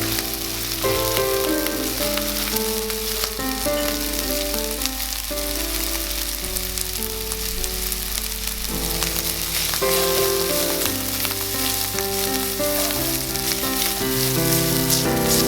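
Food sizzling and crackling in a hot frying pan, with instrumental background music playing over it.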